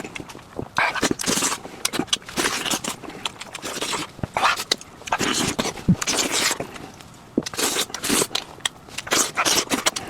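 A person eating close to the microphone: irregular wet chewing and crunching noises with scrapes and sharp clicks.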